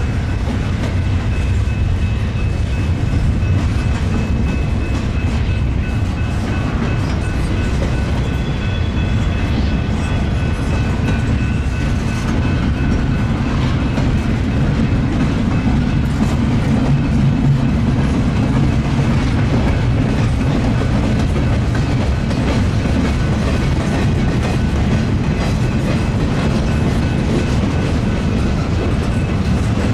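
Norfolk Southern intermodal freight train's cars rolling past, a steady loud rumble of steel wheels on rail with faint thin high tones over it.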